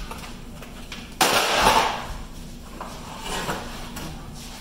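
Clear plastic and cardboard packaging being handled: a sudden loud crackle and clatter about a second in that fades over nearly a second, then a softer rustle a couple of seconds later.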